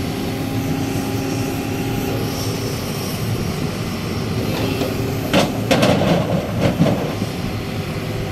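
Diesel engine of a Sumitomo SH350 hydraulic excavator running steadily. A little past the middle comes a short burst of clattering crashes as a bucketload of rock drops into a steel dump-truck bed.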